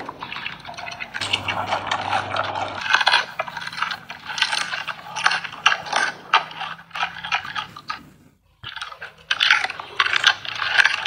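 Giant panda biting and chewing raw pumpkin: a dense run of crisp crunches and clicks, with a brief pause about eight seconds in.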